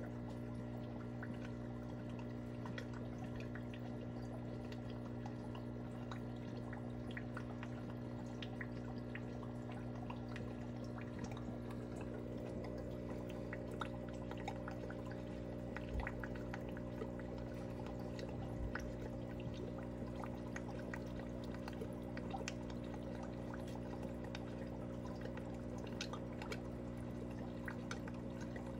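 Aquarium sponge filter bubbling and trickling: many small water drips and pops over a steady low hum.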